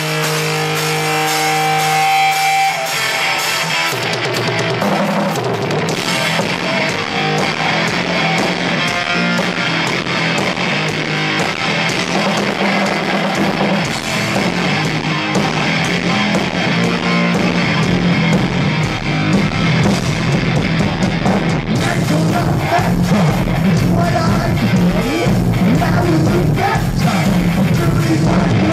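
Heavy metal band playing live at full volume: distorted electric guitar over drums and bass. It opens with a few held guitar notes, and the full band comes in about four seconds in.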